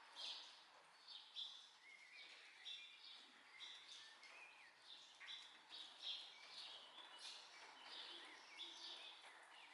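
Faint birdsong: many short, high chirps repeating throughout, with a few lower whistled notes among them.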